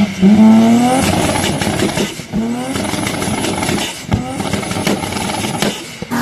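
Turbocharged car engine revved in several short blips, its pitch sweeping up with each one, with a rapid fluttering chatter between the blips, typical of turbo flutter as the throttle snaps shut.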